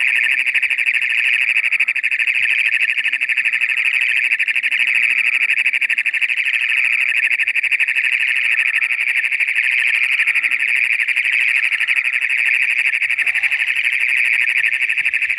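Male Great Plains toad giving its mating call: one long, loud, high-pitched buzzing trill, held steady without a break, its vocal sac fully inflated.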